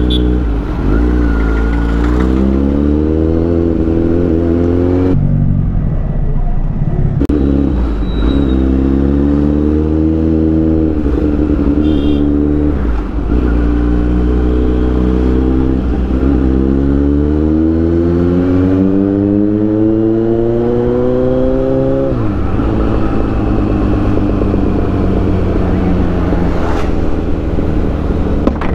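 Kawasaki Z900 inline-four engine heard from the saddle, pulling up in pitch in several rising runs, the longest lasting about six seconds, each ending in a sudden drop; after that it settles to a steady cruise over a constant low rumble.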